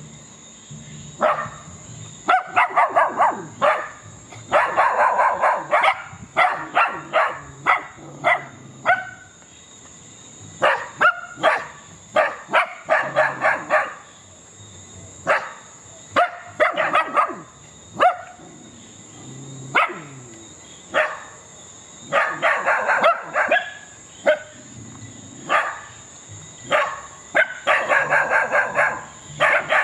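Dogs barking in rapid bursts of short, sharp barks, with pauses of a second or two between bursts.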